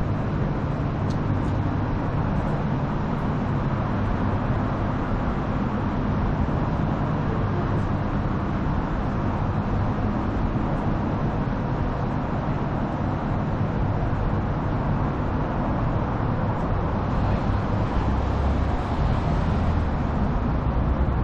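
Steady city traffic noise, with engine rumble and tyre hiss, growing louder near the end as a vehicle draws close.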